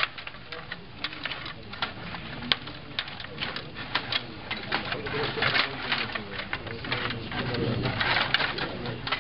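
Stiga rod table hockey game in fast play: the metal control rods and plastic players clicking and clattering against the plastic rink and puck in a rapid, irregular patter, busiest near the middle.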